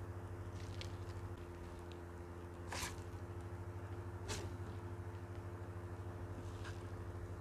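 Fingers mixing rice, fried noodles and crumbled pink crackers by hand on a banana leaf: soft squishing with faint small clicks, and two sharper clicks about three and four seconds in, over a steady low hum.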